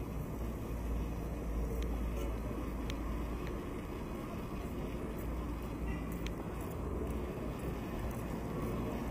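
Street ambience: a steady rumble of road traffic from passing cars, with a few faint clicks.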